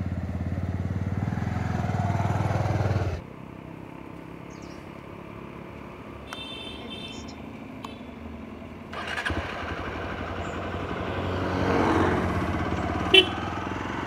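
Motorcycle engine running at a standstill, then dropping away abruptly about three seconds in. It comes back sharply about nine seconds in and rises as the bike moves off.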